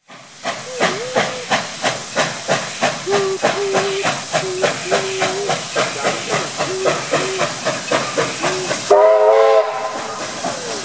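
NSW AD60-class Beyer-Garratt steam locomotive 6029 working a passenger train, its exhaust beating in a steady rhythm of about three chuffs a second with hissing steam, and a short whistle blast about nine seconds in.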